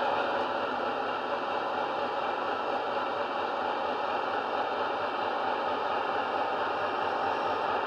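DCC sound decoder in an OO-gauge Hornby Class 60 model diesel, playing a Howes Class 60 engine sound file through a small EM2 speaker as the model hauls wagons. The engine sound is a steady, noisy drone, mixed with the model's running noise on the track.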